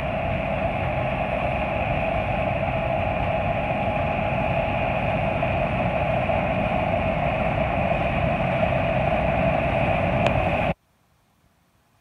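Massey Ferguson IDEAL combine harvester running while harvesting wheat: a steady machine drone that cuts off abruptly near the end.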